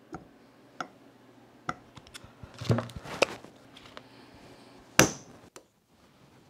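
Steel parts of a 5C collet chuck clicking and knocking together as its body is seated back over the ring gear and turned by hand, with a cluster of knocks near the middle and one sharp metallic clack about five seconds in.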